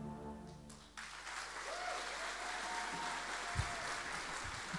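The band's last held chord stops about a second in, and audience applause breaks out, with one long cheer from the crowd.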